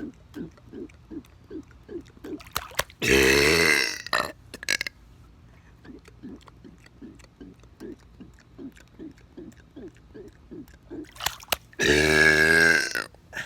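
A person burping: two long, loud burps of about a second each, the first a few seconds in and the second near the end. Between them runs a steady string of short, soft pulses, about three a second.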